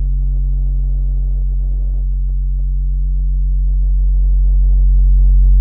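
A steady low hum made of a few held tones, with faint crackling over it, slowly getting louder toward the end.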